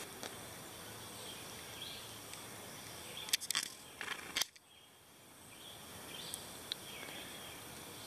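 Faint woodland ambience with a steady high hiss, broken by a few sharp clicks about three to four and a half seconds in.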